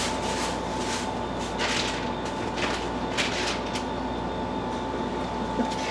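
Spice jars and containers being rummaged through on pantry shelves: a few light knocks and rustles, over a steady hum with a faint high whine.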